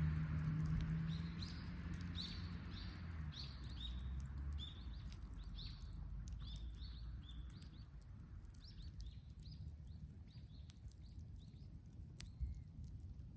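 A bird calling in a quick series of short, high chirps that stop after about nine seconds, over faint scattered crackles. A low engine rumble fades out over the first few seconds.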